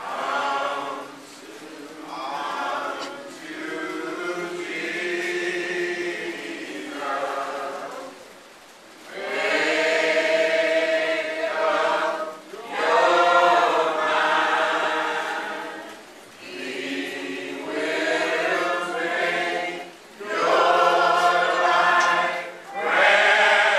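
A group of voices in a church singing a slow hymn together in long held phrases, with short breaks between the lines, sung during the invitation at the close of the service.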